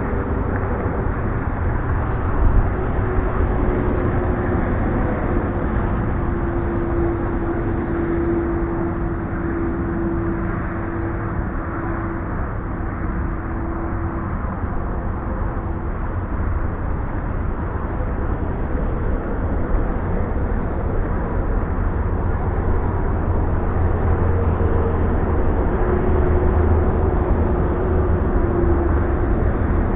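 A small engine running steadily: a low rumble with a faint droning tone that drifts slowly in pitch and grows a little louder near the end.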